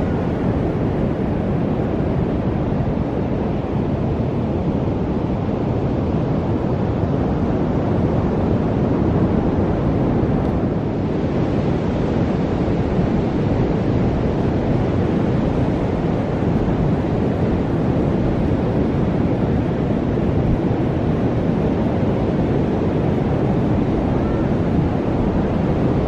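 Steady wind buffeting the microphone over the wash of breaking ocean surf: a continuous, even hiss, heaviest in the low end, with no letup.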